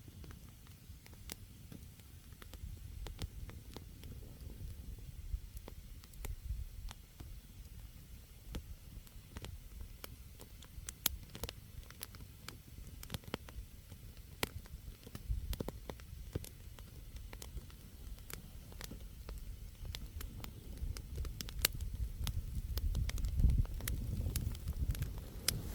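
Wood campfire burning, with frequent sharp crackles and pops of the logs over a low rumble that grows louder near the end.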